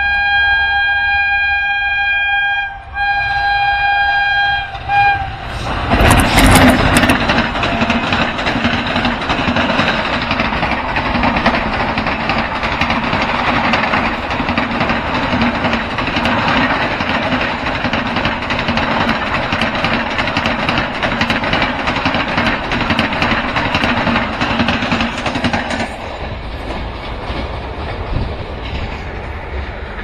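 A locomotive horn sounds two long blasts with a brief break between them. Then an Indian Railways express of LHB coaches passes at speed: loud, dense wheel-and-rail rolling noise with rapid clatter. This lasts about twenty seconds and drops away sharply near the end as the train goes by.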